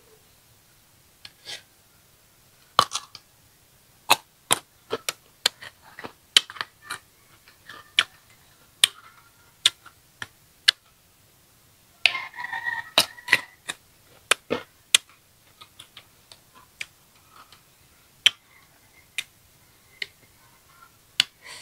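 Close-up crunching and chewing of crisp green ambarella slices: a run of sharp, crisp clicks at irregular spacing, with a denser burst of crunching about twelve seconds in.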